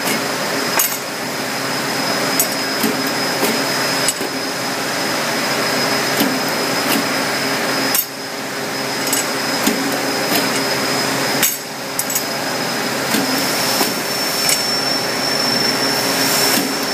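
Reed Rico B112 two-die cylindrical thread rolling machine running with a steady hum and a thin high whine, while 4140 steel bars are rolled with 1/2-20 threads. Sharp metallic clacks come every second or two as the bars are fed into the dies and handled.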